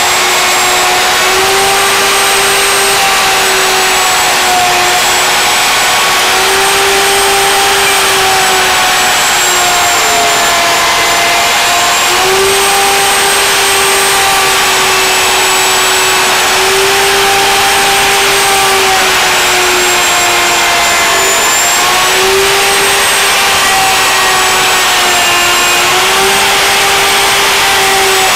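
Plunge router on a sled jig running continuously while its cutter surfaces a board in a shallow pass of about 1/16 to 1/8 inch. It makes a steady high whine whose pitch sags slightly now and then as the bit takes load in the wood.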